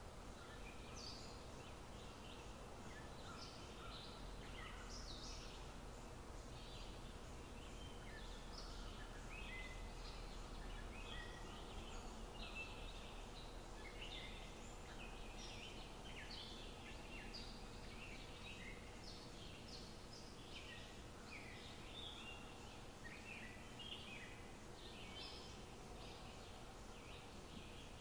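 Faint chirping of small birds, many short high calls overlapping throughout, over a low steady hum.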